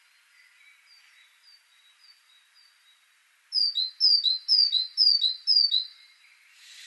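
Great tit singing its two-note 'teacher' song. Five loud phrases, about two a second, begin about halfway in, each a high note dropping to a lower one, after fainter repeated notes in the first half.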